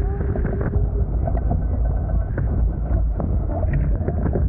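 Wind buffeting the camera microphone and water rushing past the hulls of a Hobie Tiger F18 beach catamaran under sail, with scattered knocks and ticks. A steady hum sounds through the first second and then stops.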